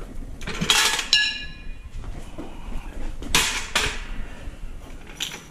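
Metal clanking from an old floor jack being handled and moved: one clank about a second in that rings on briefly, then two quick knocks about half a second apart a little past the middle.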